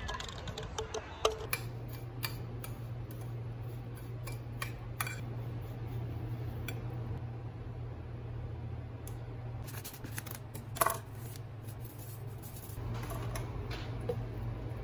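Kitchen handling sounds: scattered clicks, clinks and knocks of a glass bowl and utensils, the loudest knock about 11 seconds in, over a steady low hum. Near the end, milk is poured into a plastic blender jug.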